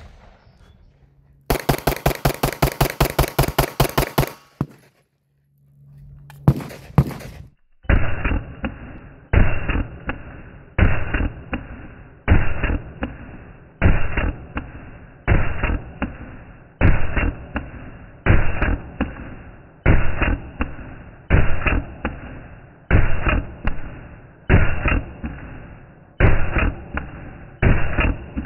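Archon Type B 9 mm semi-automatic pistol fired repeatedly, the shots coming in short strings about every second and a half from about eight seconds in. Before that, about two seconds in, a fast, even rattle of about twenty sharp cracks lasts some three seconds.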